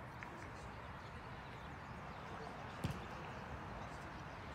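Steady background noise of a soccer match, with one sharp thud a little before three seconds in: a soccer ball being kicked.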